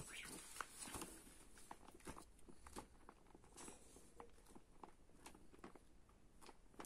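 Pages of a fashion magazine being turned by hand: a string of faint, soft rustles and flaps.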